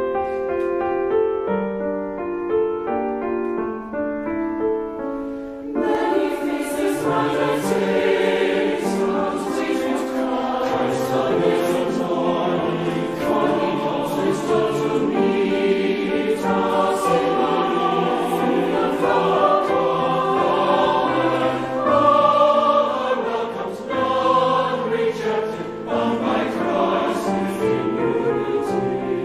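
Grand piano playing alone, then a large mixed choir of men and women comes in about six seconds in and sings with the piano.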